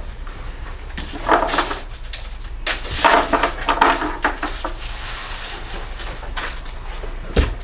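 Loose mower parts being handled and set down on a work surface: two spells of clattering, then a single thump near the end, over a steady low hum.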